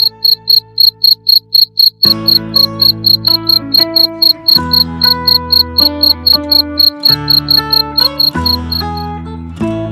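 Cricket chirping in a steady rhythm of about four short, high-pitched chirps a second.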